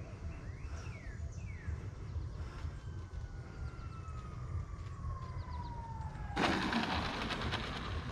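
Whine of an E-flite F-16 70 mm electric ducted-fan jet, falling steadily in pitch as it throttles back. About six seconds in a sudden loud rushing noise takes over.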